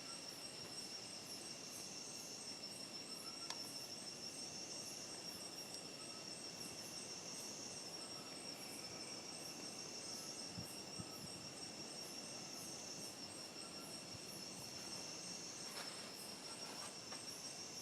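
Faint chorus of insects such as crickets or katydids: a steady high trill with a rapidly pulsing higher call above it and a weaker, lower steady tone, the trill swelling every two to three seconds.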